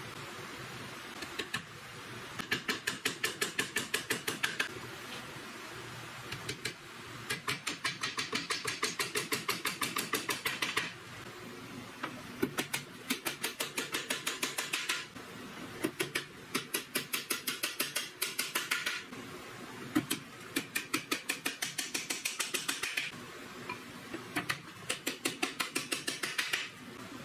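Small hammer driving thin nails into a wooden box frame. Quick, light taps come about six a second, in six runs of two to four seconds with short pauses between them.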